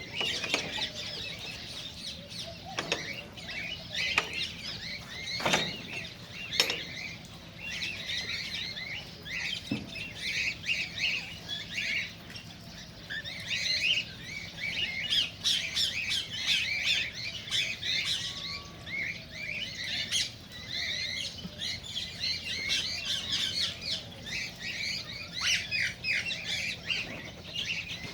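A group of cockatiels chirping and calling continuously, many short overlapping chirps and squawks with no pause. A few brief sharp knocks stand out in the first several seconds.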